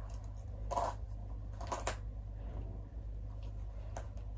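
Faint rustling of clothing being handled and adjusted, a few short bursts over a steady low hum.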